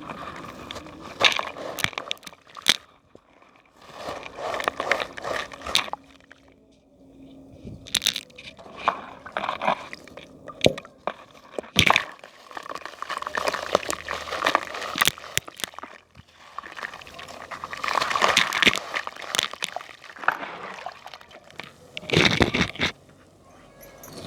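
Crunchy balls being crumbled by hand in water: bursts of crunching and crackling mixed with wet squishing and sloshing, with short pauses between the bursts.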